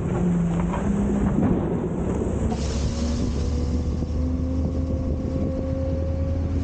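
Front-load garbage truck's engine and hydraulics running under load; about two and a half seconds in the engine note strengthens and a whine comes in that slowly rises in pitch.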